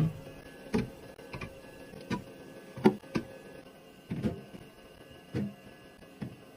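Items and containers being set down and slid into place on fridge shelves during restocking: a string of irregular knocks and clacks, one or two a second, the sharpest about three seconds in.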